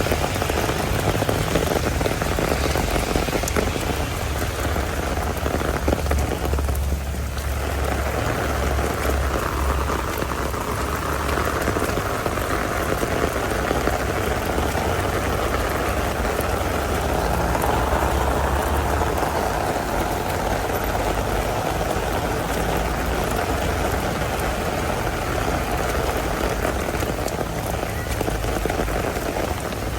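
Heavy rain falling in a steady, dense downpour, with a low rumble underneath for much of it.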